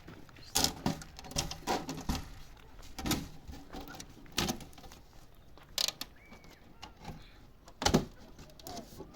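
A series of sharp, irregularly spaced knocks and clatters, about ten in all, with a few faint brief chirps between them.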